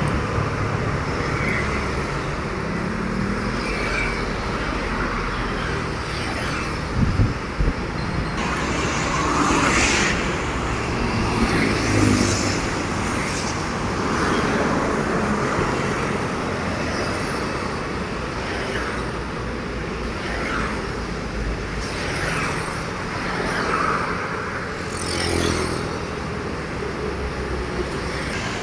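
Road traffic passing close by: one vehicle after another, with engine noise and tyre rush swelling and fading as each goes past. A brief sharp clatter about seven seconds in.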